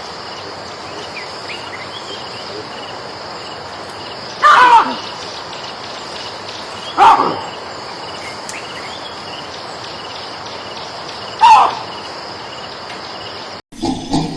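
A monkey giving three short calls, each falling in pitch, several seconds apart, over a steady chorus of crickets. Near the end the sound changes abruptly to a different, louder clip.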